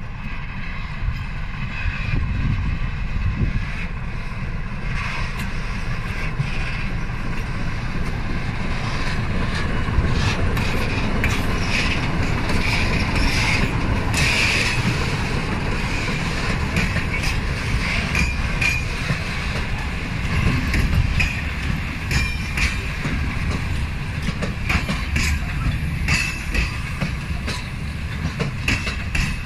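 BDZ class 55 diesel locomotive running as it passes close by, pulling a train of hopper wagons. The wheels click over the rail joints, with intermittent high squealing from the wheels.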